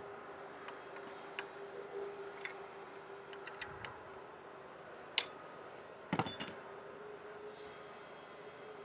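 Steel bar and a manual cold-forging scroll bender making scattered light metallic clicks, with a sharper click about five seconds in and a short clatter of metal-on-metal clanks with brief ringing about a second later, over a steady hum.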